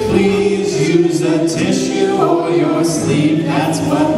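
A group of voices singing a children's song together.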